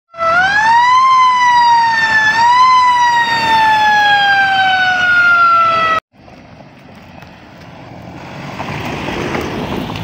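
Emergency vehicle siren wailing: a loud tone that rises twice, then slides slowly down and cuts off suddenly about six seconds in. After it, a pickup truck approaches on a dirt road, its engine and tyre noise building and then easing.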